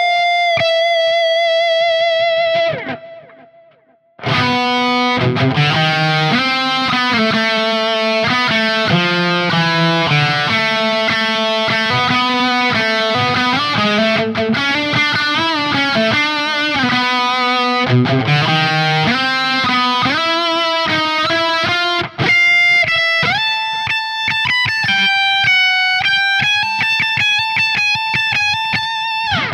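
Electric guitar playing lead lines: a held note rings and fades out, there is about a second of near silence, then a fast run of many notes follows. About 22 s in it breaks off briefly and moves to higher, longer-held notes.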